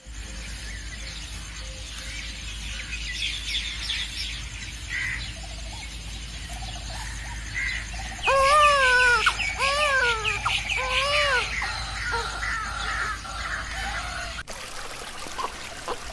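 Dawn birdsong: small birds chirping faintly, then a crow cawing three times, about a second apart, a little past the middle.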